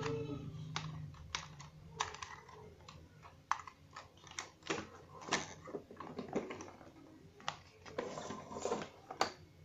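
Hard plastic clicking and tapping from a toy attack helicopter being handled, its parts knocked and fitted together: irregular clicks, a few a second.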